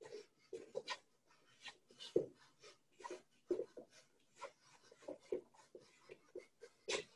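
Faint, irregular quick scuffs and taps of feet on a hard floor, with short sharp puffs of breath, two or three a second, from a boxer shadowboxing: stepping, pivoting and slipping.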